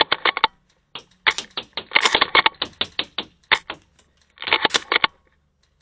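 Airsoft guns firing in rapid bursts, sharp cracks and clicks several a second: a short burst at the start, a long run from about one to four seconds in, and a last burst about four and a half seconds in.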